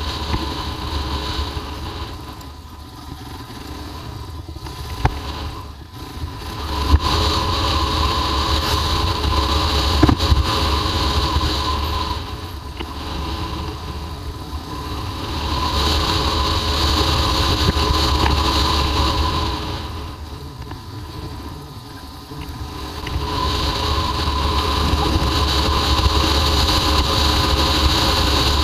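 Royal Enfield Himalayan's single-cylinder engine running under way, heard from the bike itself, rising and falling as the throttle opens and closes: softer stretches a few seconds in and again about three-quarters through, louder pulls between. A few sharp knocks sound about five to seven seconds in.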